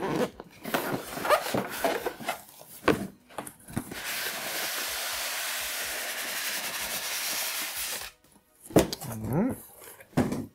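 A cardboard box handled with knocks and rustles, then a steady scraping hiss for about four seconds as the carton slides up off styrofoam packing blocks. Near the end come a few short rising squeaks.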